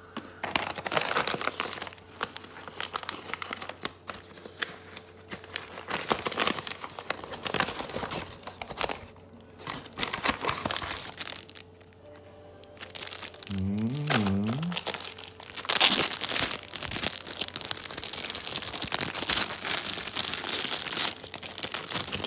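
Plastic cookie wrappers and brown paper bags being handled and unwrapped: irregular crinkling and rustling, at times tearing.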